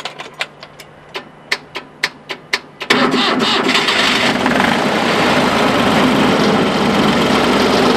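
Small utility truck's engine being cranked on the starter, with even pulses about four a second. The engine catches about three seconds in and runs steadily, much louder.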